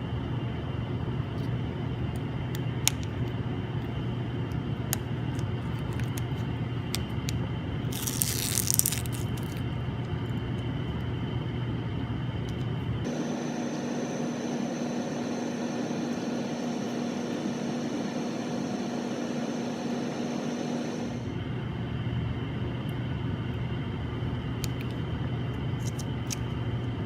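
Steady electrical hum of workshop equipment, with scattered faint clicks and a short rushing noise about eight seconds in. Midway the hum changes abruptly to a different, higher-toned hum for several seconds, then returns.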